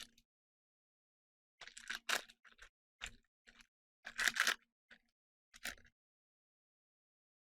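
Crinkling and tearing of a booster pack's plastic-foil wrapper as it is opened, in a run of short crackly bursts about two to six seconds in, the loudest about four seconds in.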